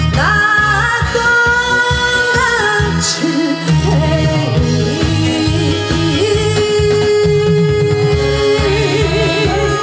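A woman singing a Korean song into a microphone over loud amplified backing music with a steady beat. About two-thirds of the way in she holds one long note, which breaks into a wavering vibrato near the end.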